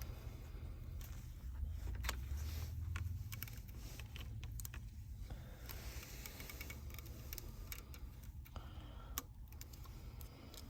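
Scattered small clicks and taps of a smartphone and its parts being handled, over a steady low hum.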